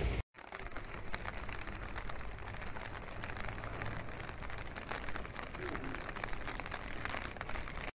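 Rain falling on a wet street: a steady hiss with many small drop ticks, over a low rumble of city background.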